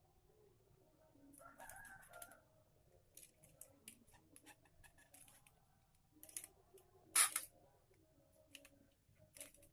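Scattered faint clicks and light handling noises from hand work, the sharpest click about seven seconds in. A rooster crows once in the background, about a second and a half in.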